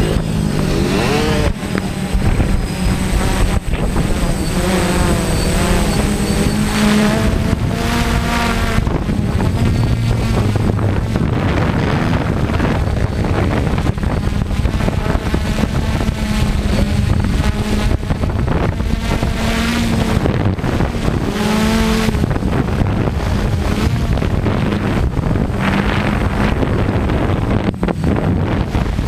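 Camera quadcopter's motors and propellers whirring steadily, with wind buffeting the microphone; the pitch shifts up and down now and then as the drone manoeuvres.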